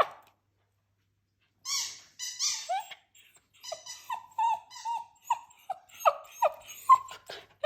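Small dog whining in a run of short, high-pitched whimpers, starting about a second and a half in and repeating irregularly.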